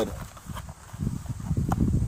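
Handling noise as a cardboard ammunition box is picked up and lifted close to the microphone: an irregular low rumbling that builds, with a light click about half a second in and another near the end.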